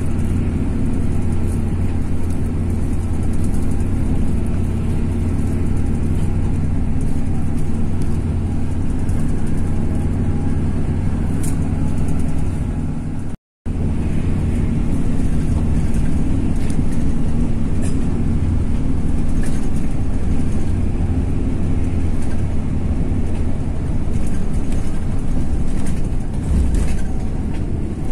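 Coach bus under way: a steady drone of engine and road noise that holds constant, with a brief dropout to silence about halfway through.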